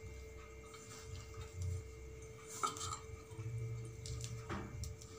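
A hand mixing sliced onions with gram flour in a stainless steel bowl: soft squishing and rustling, with a few light clicks against the steel.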